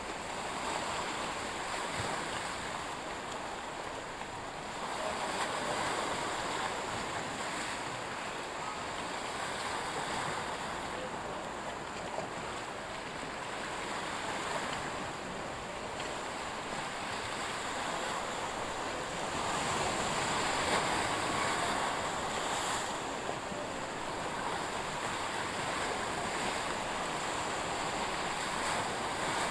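Sea waves washing in a steady rush with wind, swelling and easing slowly.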